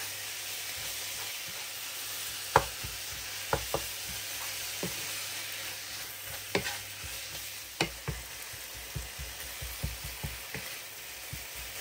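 Ground beef and chopped onion sizzling in a non-stick frying pan, stirred and broken up with a wooden spoon, with a steady sizzle and scattered knocks of the spoon against the pan.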